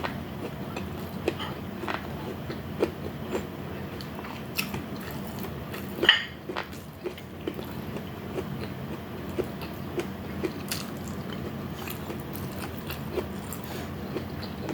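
Close-miked eating sounds: chewing and biting with many small, irregular wet clicks, and one louder, sharper bite about six seconds in.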